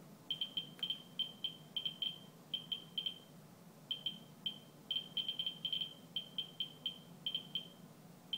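Ludlum survey meter with a pancake Geiger probe chirping from its audio speaker: short high beeps at irregular, random intervals, about three to four a second, each one a detected count. The probe is held to a rain-soaked paper towel, and the rate, about 200 counts per minute, is well above the background of about 20 to 50.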